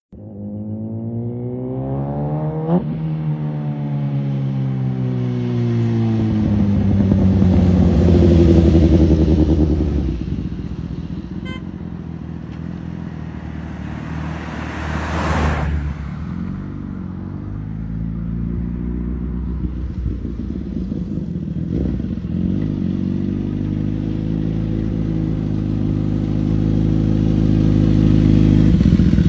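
Suzuki GSX motorcycle engine revving and running at changing speed. Its pitch climbs, drops sharply about three seconds in, climbs again to a loud peak around eight or nine seconds, falls back, then rises slowly again. A short loud rush comes about fifteen seconds in.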